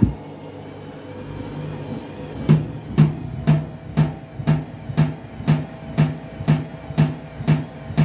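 Washing machine drum with an unbalanced bedding load. After a heavy knock at the start it bangs regularly, about twice a second, from a few seconds in, which is the out-of-balance load striking the drum on each turn.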